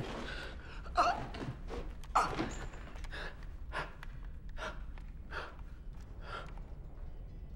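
A man breathing hard in ragged gasps: two loud, sharp gasps in the first couple of seconds, then quieter panting breaths about one a second that die away near the end.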